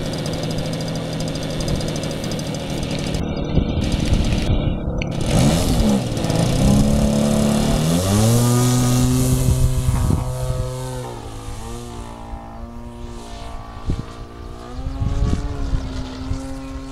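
RC aerobatic model airplane's motor and propeller running on the ground, then opened up for the takeoff about eight seconds in. The pitch holds at full power, then shifts in steps as the plane climbs and flies around.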